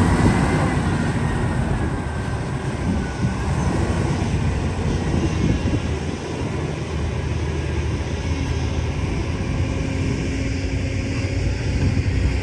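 Excavator's diesel engine running steadily, with a faint falling whine over the first few seconds and a low steady hum joining about two-thirds of the way in.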